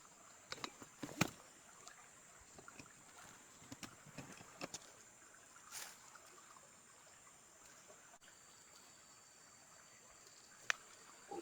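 Faint water lapping and trickling, with a few scattered light clicks and knocks, and a thin steady high whine in the background.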